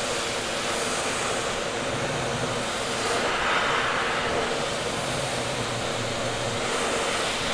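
Wall-mounted hands-free electric hand dryer blowing a steady rush of air over the hands.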